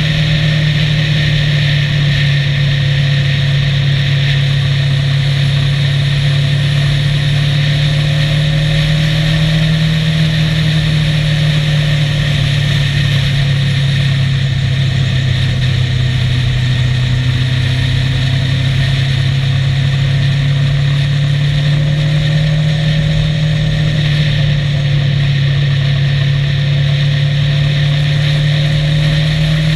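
Motorcycle engine running at a steady cruising speed, its hum drifting slightly up and down in pitch. Over it is a steady hiss of wind and road noise.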